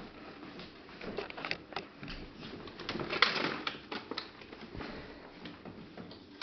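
A small child's soft cooing vocal sounds, loudest about three seconds in, among scattered light taps and clicks.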